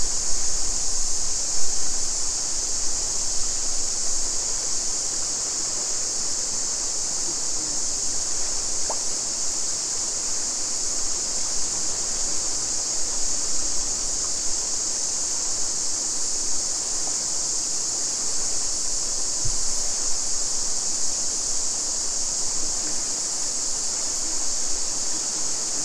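Fast-flowing mountain creek rushing over rocks, with a steady high-pitched chorus of cicadas over it.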